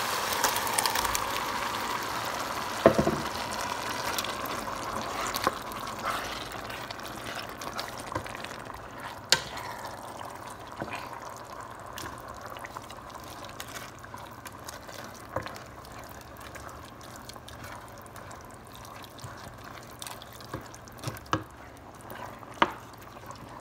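Crushed tomatoes going into a hot pot of browned minced beef and onions: a wet hiss that is loudest at first and slowly fades to a soft bubbling. A wooden spoon knocks against the pot now and then as the sauce is stirred.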